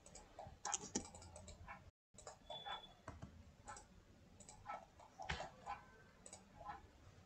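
Faint, irregular taps and clicks of a computer keyboard and mouse.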